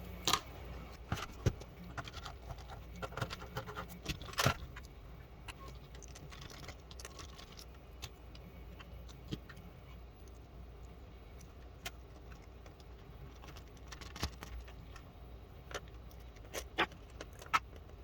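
Sparse light clicks, taps and small rattles of small hardware being handled while a small cooling fan in a DVR is swapped, the sharpest about four and a half seconds in and a few more near the end, over a low steady hum.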